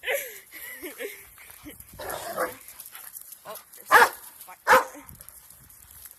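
Dog barking during rough play over a stick: two loud, sharp barks about four seconds in, after softer, sliding vocal sounds near the start.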